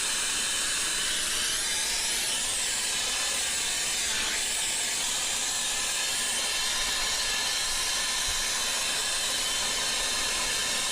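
Handheld gas torch flame burning with a steady hiss, as used to heat copper pipe for soldering.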